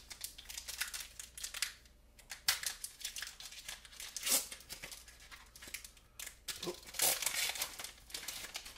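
Foil wrapper of a Pokémon TCG booster pack being torn open and crinkled by hand, in irregular bursts of crackling.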